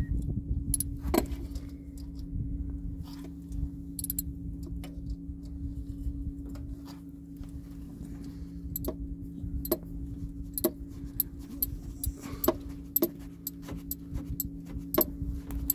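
Sharp metallic clicks and clinks at irregular intervals from a socket wrench being worked on the 12 mm mounting bolts of a serpentine belt tensioner, over a steady low hum.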